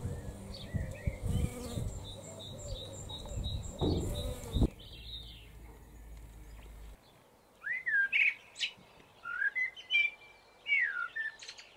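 A bee buzzing at rosemary flowers over a low rumble, with a bird repeating a short high chirp. From about seven seconds in, a songbird sings varied whistled phrases.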